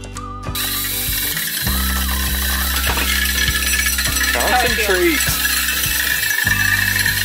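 Cordless drill fitted with a wire whisk attachment, running and whisking ingredients in a bowl. It starts about half a second in and stops near the end.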